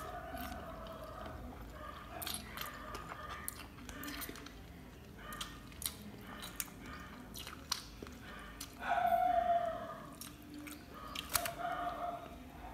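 Close-up chewing and wet mouth clicks of someone eating rice and chicken curry, with soft squelches of fingers in the rice. A few short hums break in, the loudest about two-thirds of the way through.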